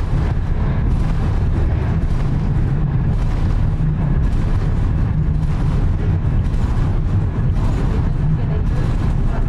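Lycabettus funicular railway car climbing through its tunnel: a steady low rumble of the car running on its track.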